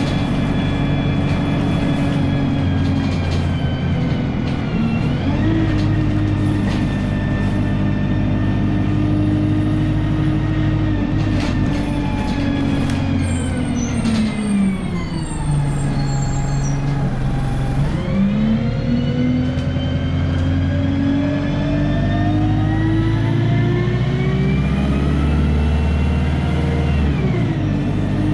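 A bus's diesel engine running, then slowing to a low idle about halfway through. It then pulls away, its pitch rising steadily before dropping at a gear change near the end.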